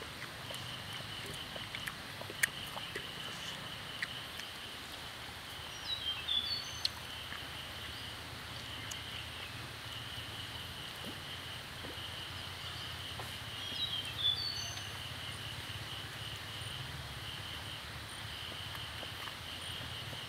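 Woodland ambience: insects keep up a steady, fast-pulsing trill, and a bird sings a short phrase of falling notes twice, about halfway in and again some eight seconds later.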